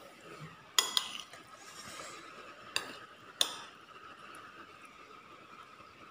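A metal spoon clinking and scraping against a ceramic bowl while scooping rice. There are four sharp clinks: two close together about a second in, one near three seconds and one a little after.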